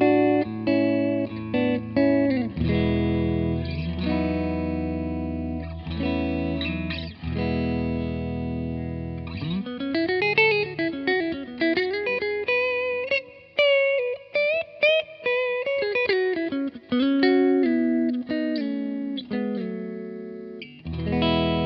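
Clean electric guitar: a Mexican-made Fender Telecaster with Cavalier pickups, played through a Vintage Sound 22SC amp with an Eminence GA-SC64 speaker. Ringing chords give way about ten seconds in to a single-note lead with string bends, then chords again near the end.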